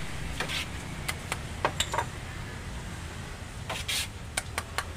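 Metal ladle clinking and scraping against a large metal pot of rice porridge and a ceramic serving bowl as the porridge is scooped out. It comes as a dozen or so sharp, separate clinks, bunched together near the end.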